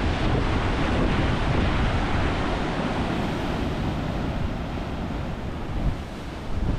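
Large ocean surf breaking against the shore, a steady wash of noise, with wind buffeting the microphone.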